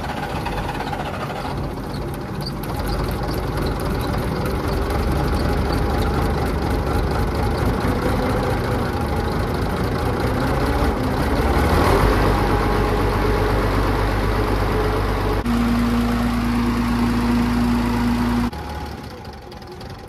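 Engine running after being turned over with its clogged fuel filter freshly cleaned, run to see whether more debris comes through from the dirty tank. It grows louder about twelve seconds in, a steady whine joins for a few seconds near the end, and then the level drops.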